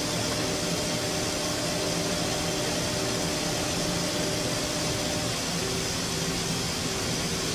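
Mazak Integrex e-420H-ST multi-tasking CNC machine running a milling cut on a turned workpiece: a steady whirring hiss with a faint hum, even throughout.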